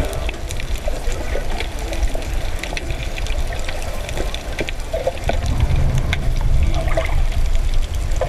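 Underwater sound through a camera housing while snorkeling: a muffled low rumble of moving water with scattered faint clicks, the rumble growing louder about five seconds in.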